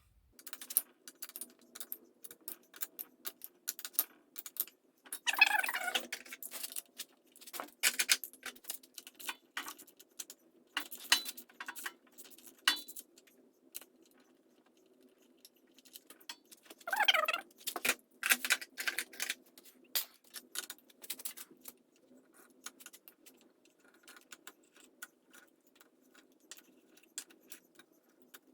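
Metal hand tools clinking and rattling against the nuts and bolts of a Honda CB350 Four cylinder head as they are undone, in scattered clicks with two busier spells, over a faint steady hum. The head fasteners are ones the mechanic suspects were never torqued down.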